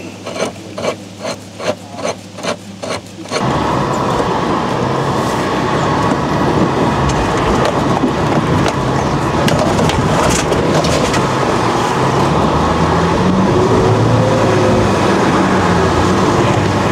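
Regular clicking about three times a second over a low hum, then suddenly a vehicle engine running hard under load over rough off-road ground, its pitch rising and falling, with knocks and rattles.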